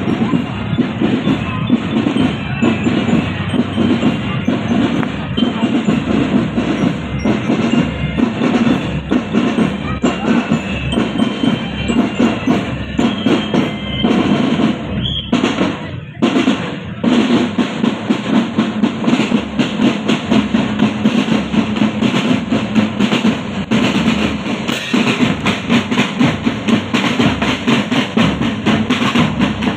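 Marching drum band playing: bass drums and snare drums beating a steady, continuous marching rhythm with rolls, which breaks off for a moment about halfway.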